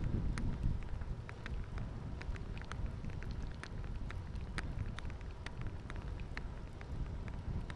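Wind noise on the microphone of a riding bicycle, a steady low rumble, with light clicks and rattles coming several times a second at uneven intervals.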